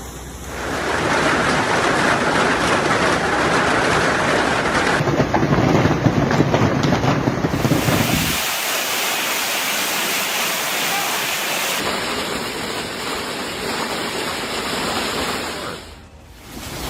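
Loud, steady noise of heavy rain and storm, made up of several short clips that change abruptly every few seconds.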